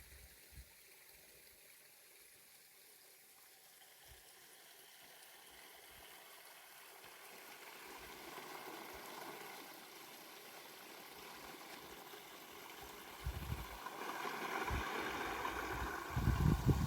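Running water gurgling, growing gradually louder, with low thumps or rumbles near the end.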